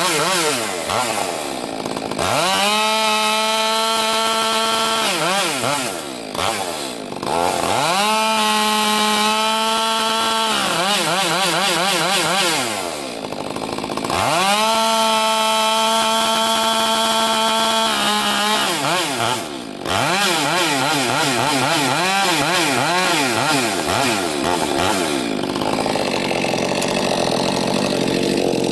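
Stihl MS 462 two-stroke chainsaw, fitted with a Bark Box aftermarket muffler, cutting logs: it runs at full throttle in three long steady stretches, with the revs dropping and wavering between them. Near the end it drops to idle.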